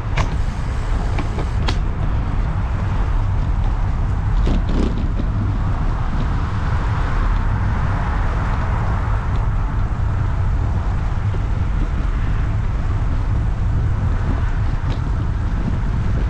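Wind rumbling on the microphone of a camera riding on a moving bicycle, over steady road-traffic noise that swells for a few seconds around the middle, as of a vehicle passing. A few sharp clicks near the start and about four and a half seconds in.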